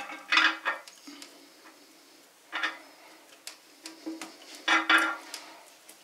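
Light metal clinks and rattles of a toilet flapper chain and its hook being handled inside a porcelain toilet tank. They come in several short bursts, with quieter gaps between them.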